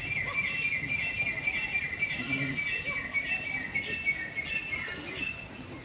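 A small bird chirping, a rapid run of short, evenly repeated high notes that fades out near the end.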